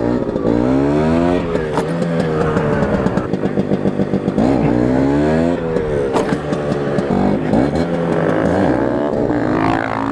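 Genuine Stella 150 two-stroke scooter engine with a Polini VNX exhaust, revved hard through the gears: its pitch climbs steeply and falls back several times as it pulls a second-gear wheelie.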